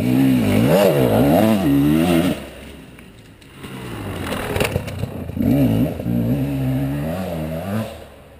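2013 KTM 300 XC's 300 cc two-stroke single-cylinder engine revving hard with the throttle blipped up and down as the dirt bike rides close past. It drops off after about two seconds, then revs up loudly again in a second burst from a few seconds in, fading near the end.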